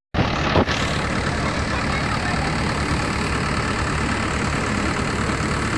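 Tractor-powered paddy thresher running steadily, the tractor engine and the threshing machine making one continuous loud mechanical noise as rice is threshed. The sound drops out for an instant at the very start, and there is one sharp knock about half a second in.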